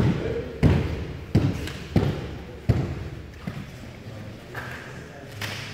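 Five dull open-hand slaps on gi-clad backs as teammates hug and congratulate one another, about two-thirds of a second apart, the last near three seconds in. Applause dies away under the first slaps, and quieter room sound follows.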